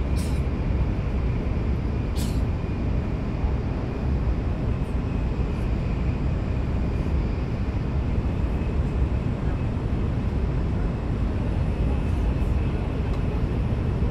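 Interior running noise of an N700S-series Shinkansen at speed, heard inside the passenger cabin: a steady, heavy rumble with a faint high whine, and two brief hissing ticks in the first couple of seconds.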